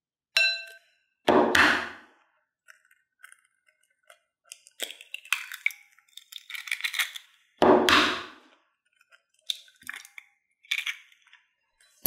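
A plastic spoon clinks once against a ceramic bowl, ringing briefly. Then two eggs are cracked into a small glass bowl, one about a second in and one about eight seconds in, with shell crackling and light clinks between them and a fork tapping the glass near the end.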